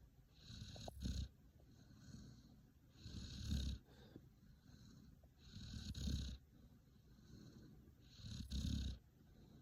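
An Akita dog's rumbling, snore-like breathing in sleep: four slow breaths about two and a half seconds apart, each about a second long. The owner cannot tell whether it is snoring or purring, and says it comes while her head is being petted and stops when the petting stops.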